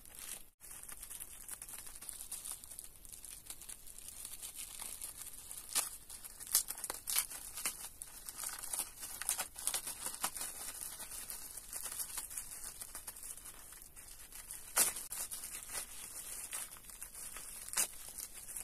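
Thin plastic wrapper of an individually wrapped sanitary pad crinkling and tearing as it is opened and unfolded, with several sharper crackles along the way.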